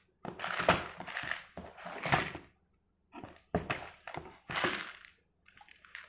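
Cardboard box being opened and handled: its flaps pulled, rustling and scraping in a few bursts with sharp thuds, then fainter handling as a plastic vitamin bottle is lifted out near the end.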